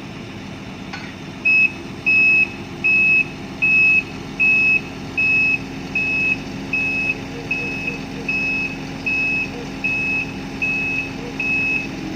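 Heavy-equipment backup alarm beeping at an even pace, about one and a half beeps a second, starting about a second and a half in, over a diesel engine running steadily.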